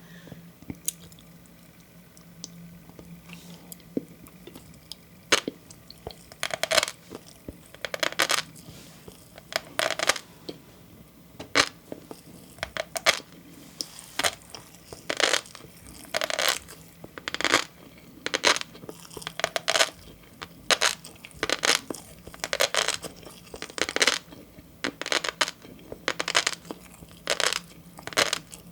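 Close-miked chewing of green flying fish roe (tobiko), the eggs crackling and popping in the mouth in repeated bursts. After a few scattered clicks, the bursts become regular about six seconds in, roughly one or two a second.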